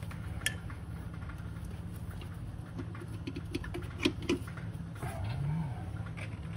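Scattered light clicks, taps and a couple of sharper knocks from hand work on the engine, over a steady low hum. A short rising-and-falling tone comes near the end.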